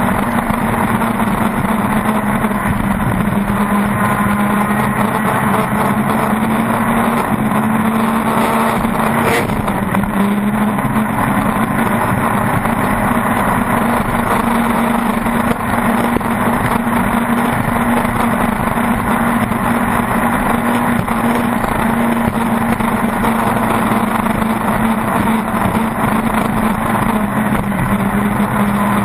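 Pro Stock circle race boat's engine running flat out at a steady pitch, with wind and water rushing past the onboard microphone.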